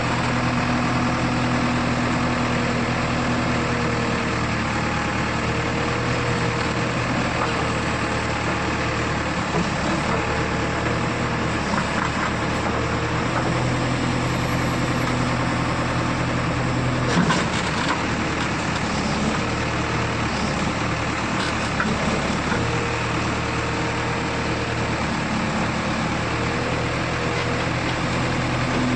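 JCB 3DX backhoe loader's diesel engine running steadily at a constant speed, with a brief metallic knock about halfway through.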